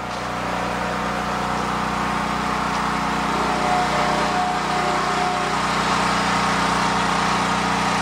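Generator engine running steadily at a constant speed.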